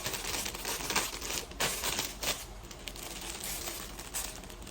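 Plastic packaging crinkling and rustling as packs of rubber slippers are handled, busiest in the first couple of seconds and then quieter.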